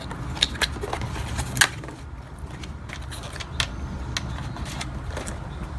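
Handling noise from a packaged aftermarket steering hub being picked up and shown: scattered light clicks and taps over a steady low hum.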